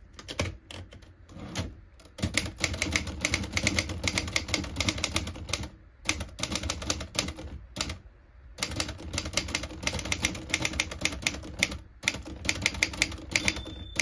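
Erika 20 portable manual typewriter being typed on: a few slow single keystrokes, then quick runs of clacking key and typebar strikes in several bursts separated by short pauses.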